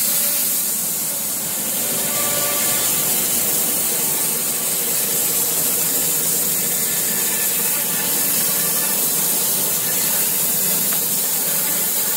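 Wood-Mizer LT15 band sawmill running, its band blade cutting steadily through a box elder burl log with an even, unbroken hiss.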